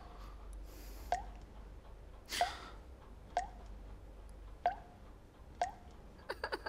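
Short, sharp drip-like sounds repeating about once a second. About two and a half seconds in there is a brief rustle-like hiss, and near the end a quick run of several comes close together.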